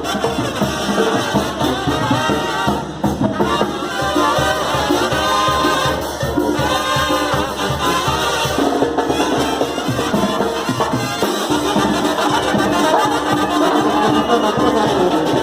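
Loud Latin dance music led by a brass section over a steady drum beat.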